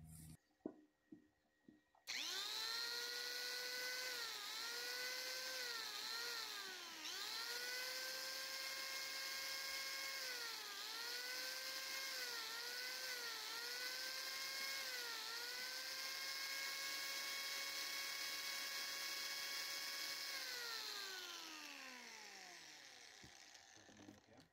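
Corded electric angle grinder starting up about two seconds in after a few clicks. Its whine dips in pitch again and again as the disc is pressed into the wood to shave the carving, then runs steady and winds down to a stop near the end.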